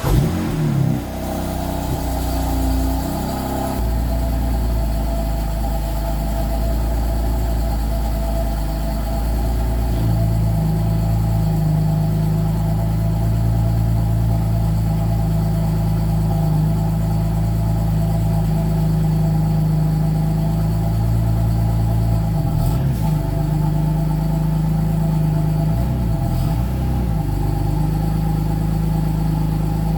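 BMW M3 F80's twin-turbo straight-six engine running steadily at idle. Its note steps up about a third of the way in and dips and rises briefly twice near the end.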